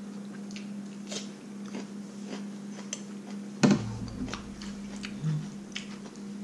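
Mealtime sounds: chewing and small clicks of spoons against bowls, with a single loud thump about three and a half seconds in. A steady low hum runs underneath.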